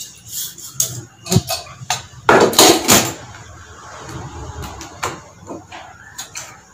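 Stainless steel kitchen utensils (tumbler, bowls and a small lidded tin) clinking and knocking as they are handled and set down by a gas stove, with a louder, longer metal clatter about two and a half seconds in.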